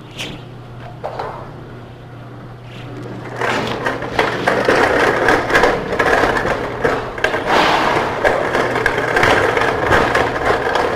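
Pittsburgh lock forming machine with its motor humming steadily. From about three seconds in, a sheet-metal edge runs through its rollers with a loud, continuous metallic rattle as the Pittsburgh seam edge is formed.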